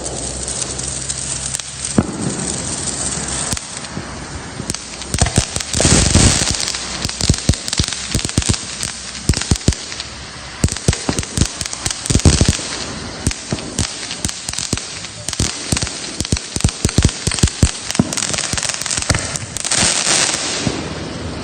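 Consumer fireworks going off: a steady hiss under many rapid sharp cracks and pops, with the loudest bursts about six, twelve and twenty seconds in.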